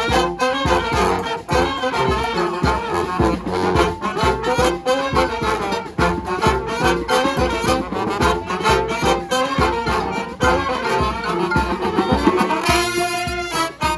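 A brass street band playing live: trumpets and trombones over a steady percussive beat. Near the end the horns hold one long note.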